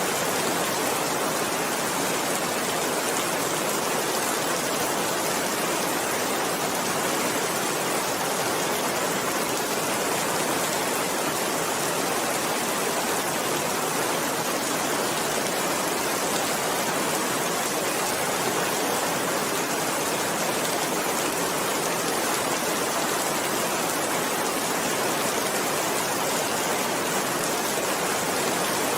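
Steady rain falling, an even, unbroken hiss at a constant level.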